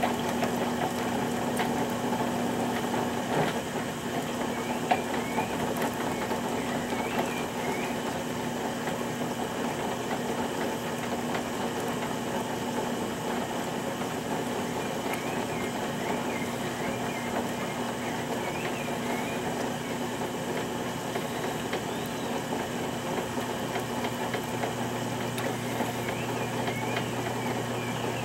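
Potter's wheel running with a steady motor hum while wet clay spins under the hands, the lower part of the hum growing stronger near the end.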